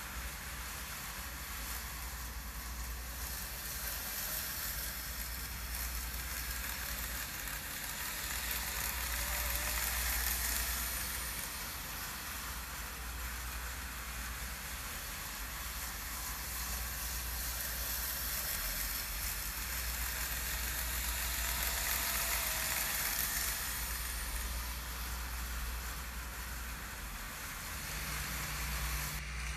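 N gauge model trains running on the track: a steady hiss of wheels and motors that swells twice, with a faint wavering whine at the louder moments.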